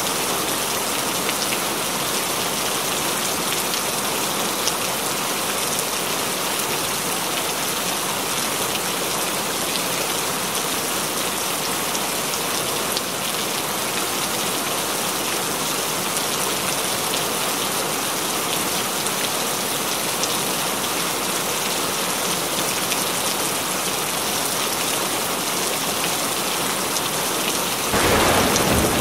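Heavy rain falling steadily, a dense, even hiss of many drops. About a second before the end the sound turns louder and deeper.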